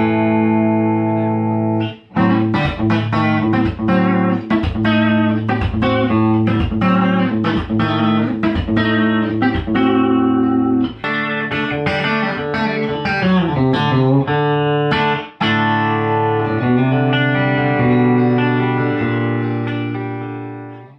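Tom Anderson Telecaster-style electric guitar with handwound Nokkel Telecaster pickups, played through an amp. It opens on a held chord and moves into quick picked runs, breaking off briefly a few times, and fades out at the end.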